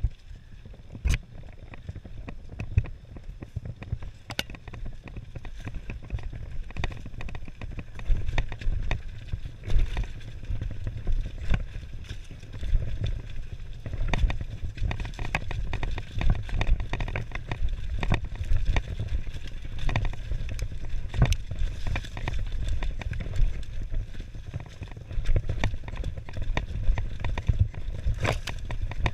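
Mountain bike rolling fast over a rough dirt singletrack: a steady low rumble from the tyres, with frequent sharp knocks and rattles as the bike hits roots, rocks and bumps.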